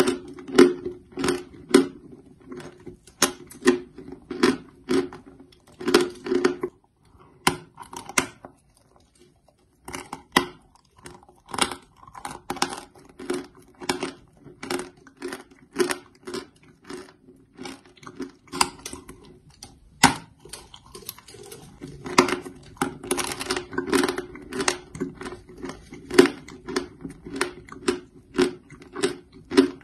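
A person chewing a dry, crumbly block of chalk: steady crunches at about two a second, with a short pause about nine seconds in.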